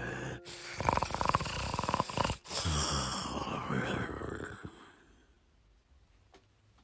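Snoring: a fast rattling snore, then a longer breathy one that fades away.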